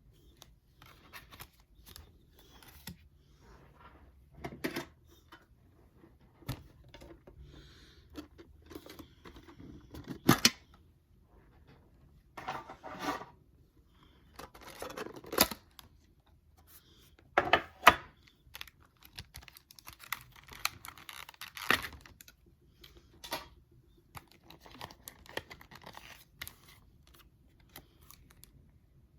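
Pokémon trading-card booster pack being opened and the cards handled: the wrapper tearing and crinkling, and cards snapping and sliding against each other. It comes in irregular bursts of rustle and sharp clicks, the loudest snaps about ten and eighteen seconds in.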